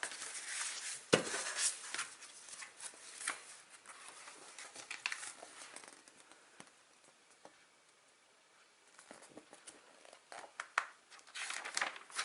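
Paper rustling and crinkling as a folded card-game guide is handled, opened and its pages turned, with a sharp knock about a second in. It goes quieter in the middle, then rustles again near the end.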